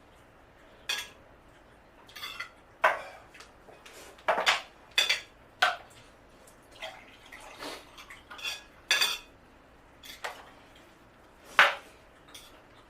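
Cutlery and dishes clinking during a meal: about a dozen irregular, separate clinks of spoons against plates, the loudest near the end.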